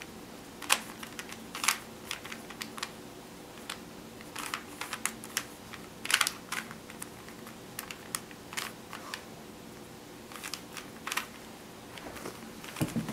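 Faces of a 3x3 Rubik's Cube being turned by hand: irregular plastic clicks and rattles, some single and some in quick clusters, while the solver builds the green cross.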